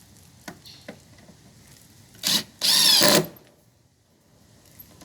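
Power drill driving a long hinge screw into wood without a pilot hole: a short burst, then a longer run about two seconds in, with the motor's whine rising and falling.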